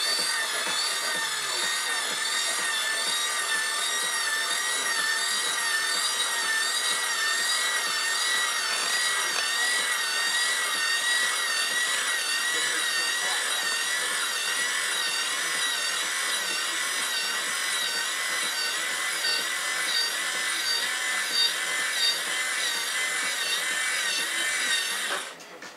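Electric motor of an RC tipper truck's tipping mechanism whining steadily as it turns a threaded spindle and linkage that raise the tipper body. The whine wavers slightly in pitch and cuts off suddenly near the end as the lift stops.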